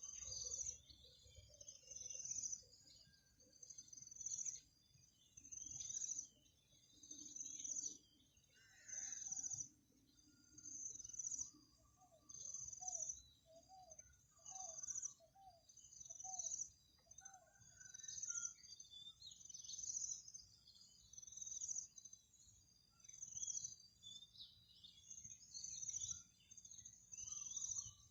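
Wild birds calling: a high, sharp chirp repeating about once a second, with scattered calls from other birds. Around the middle, a run of about eight lower notes.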